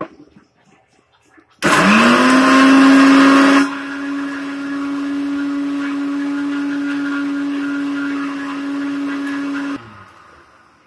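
Electric mixer grinder switched on: the motor spins up quickly to a steady high hum, with a loud rushing noise for the first two seconds that then settles to a quieter, even run. About ten seconds in it is switched off and winds down.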